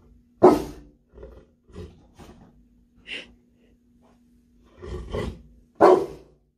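Large mastiff barking in deep, single woofs spaced a second or more apart: a loud one about half a second in, softer huffs between, two more around five seconds and another loud one near the end. A faint steady hum lies underneath.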